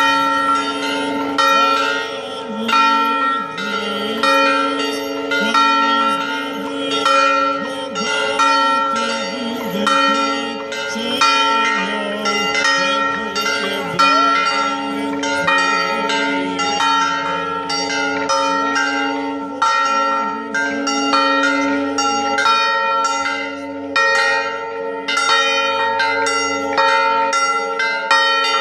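Several church bells set in low frames on the ground, rung by hand in a continuous festive peal of rapid, overlapping strikes over long-ringing tones.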